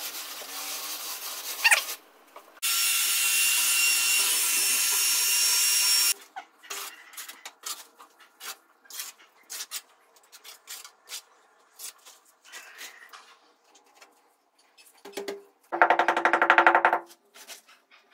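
Wall work: a hand-held piece rubbed and scraped against a rendered wall, then a few seconds of loud steady hiss, then scattered light taps and knocks.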